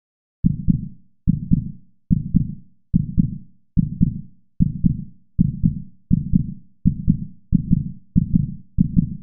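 Heartbeat sound effect: a steady lub-dub of paired low thumps, about a dozen beats, starting about half a second in and quickening slightly toward the end.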